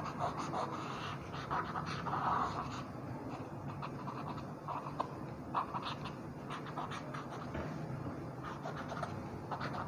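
Cotton bud rubbing over charcoal shading on drawing paper, blending it in short, irregular strokes.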